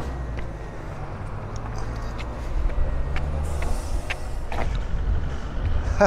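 Steady low hum of a nearby motor vehicle's engine running, fading after about three and a half seconds, with a few light footsteps on concrete steps.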